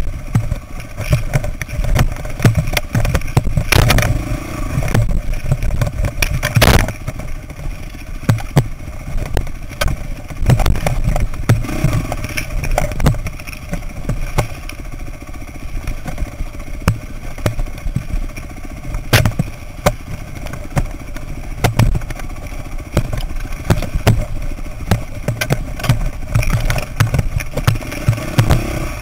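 Off-road dirt bike engine running at low revs on rough rocky singletrack, with frequent knocks and clatter from the bike over rocks and a few sharp hits.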